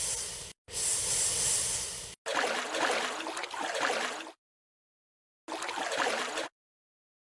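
Cartoon water sound effects in separate bursts that cut in and out abruptly: a rushing splash, then a couple of seconds of bubbling, gurgling water, and a shorter burst of the same about five and a half seconds in, with dead silence between.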